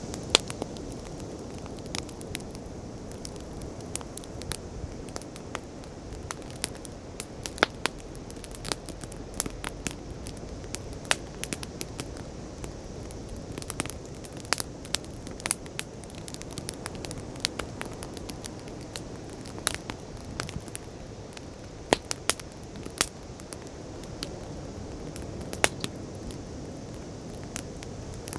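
Wood campfire crackling, with many irregular sharp pops and snaps over a steady low rush of sea waves.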